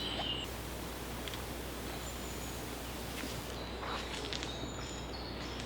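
Woodland ambience: a steady rustle that thins out about three and a half seconds in, with a few light clicks and a faint bird call.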